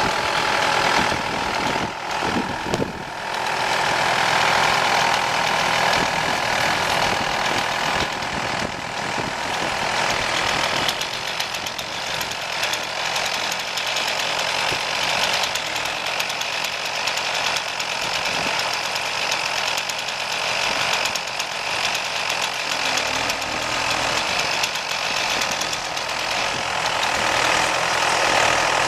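Chainsaw running steadily at high revs, with a brief dip about two to three seconds in.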